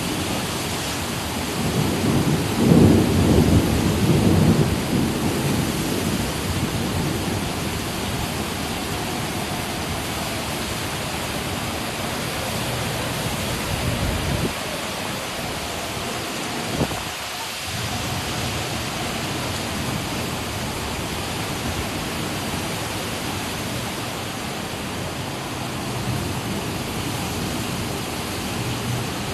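Severe thunderstorm with hurricane-force wind gusts and heavy rain: a steady rushing noise, with a louder low rumble about two to five seconds in.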